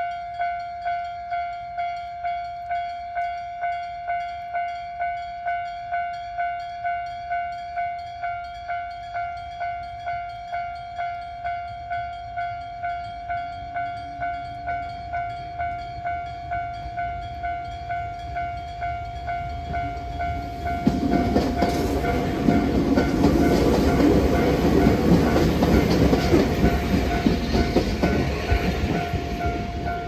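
Electronic level-crossing warning bell ringing in an even, rapidly repeating ding. About twenty seconds in, an electric train passes over the crossing with a loud rumble and wheel clatter over the bell, louder than the bell itself.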